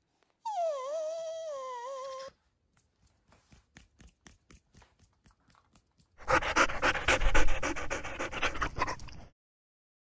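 A small dog gives one long whine that falls in pitch and lasts about two seconds. Faint irregular ticks follow, and about six seconds in comes a loud, rough stretch of dog sound lasting some three seconds.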